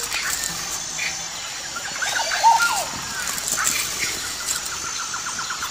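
Birds chirping and calling in forest, with curving, swooping notes around the middle and a fast run of repeated notes, about eight a second, near the end, over a steady high hiss.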